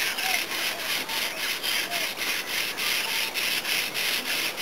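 Sandpaper rubbed by hand back and forth along a wooden paddle shaft, an even run of rasping strokes at about four a second, smoothing the timber ready for resin and fibreglass.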